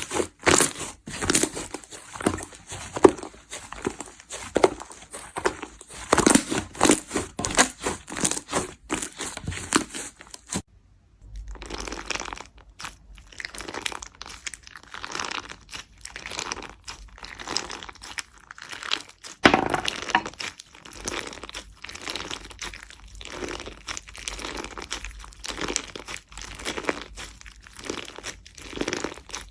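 Slime being squeezed, poked and stretched by hand, giving dense, irregular crackling and popping. The sound stops briefly about ten seconds in, then resumes somewhat softer.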